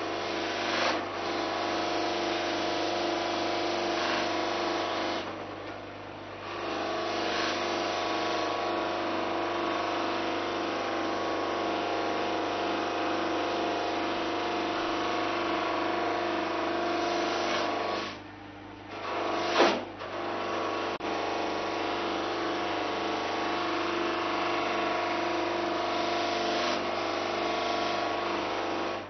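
Clarke bench buffing machine running with a steady motor hum while a clear acrylic block is pressed against its spinning buffing wheel, giving a continuous rubbing hiss. The hiss drops away twice, around six seconds in and again around eighteen seconds, as the block comes off the wheel, and a sharp knock sounds just before twenty seconds.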